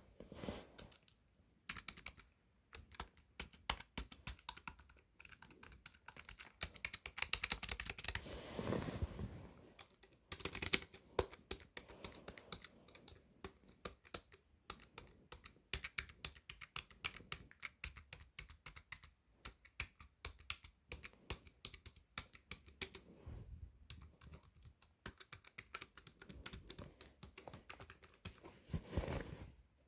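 Typing on a computer keyboard: a fast, uneven run of key clicks with a few short pauses.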